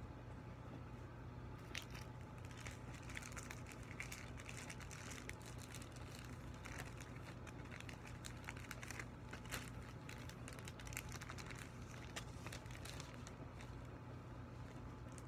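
A flat mylar foil balloon crinkling as it is unfolded and handled. Irregular crackles start about two seconds in and thin out near the end, over a faint low steady hum.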